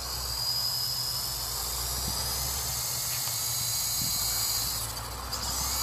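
Electric motors and coaxial rotors of a Double Horse 9053 Volitation RC helicopter running, a steady high-pitched whine over a low rotor hum. It dips briefly near the end and then climbs in pitch.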